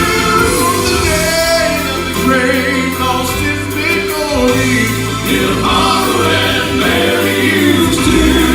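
Gospel vocal quartet singing in harmony over instrumental backing.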